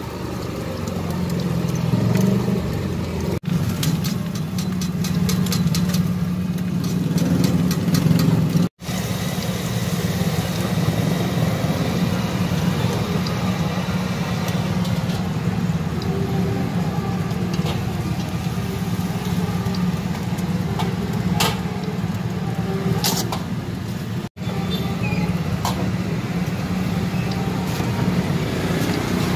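Steady roadside traffic noise, a low rumble of car and motorbike engines going by, with a few sharp clicks from the cooking now and then.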